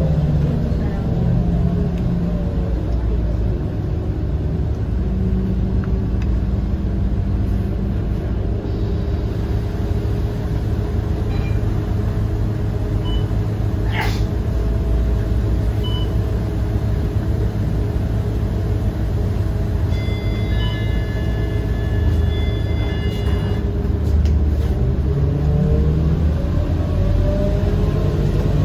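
Scania K230UB city bus's diesel engine and drivetrain. The engine note winds down as the bus slows at the start, runs steadily through the middle, and climbs again near the end as the bus pulls away. A few brief high beeps come about two-thirds of the way through.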